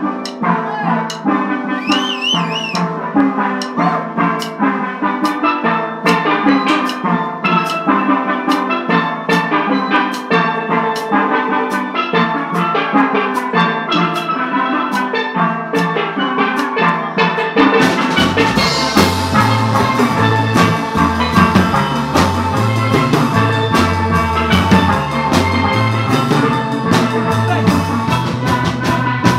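Steel band playing live: steel pans struck with mallets carry the tune over a drum kit keeping a steady beat. About eighteen seconds in, a low bass line comes in and the drumming fills out with cymbals.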